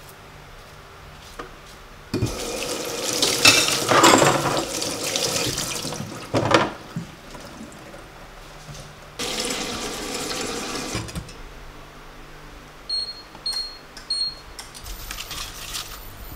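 Kitchen tap running into a sink while cucumbers and sweet corn are rinsed under it, in two spells: the first about four seconds long, the second about two. Near the end come three short high beeps.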